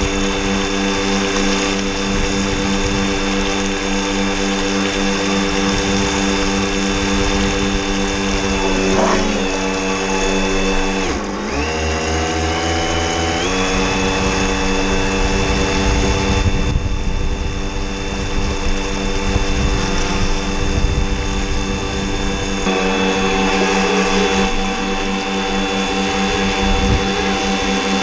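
Electric motor of a model RAF 206 Sea Plane Tender RC boat running at speed and whining steadily, heard on board, with wind buffeting the microphone. About eleven seconds in, the pitch drops for a couple of seconds as the throttle eases, then jumps back up.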